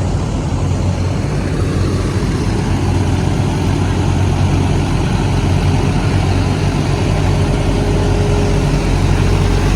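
Engine of a heavy road-construction machine, such as an asphalt paver or roller, running steadily.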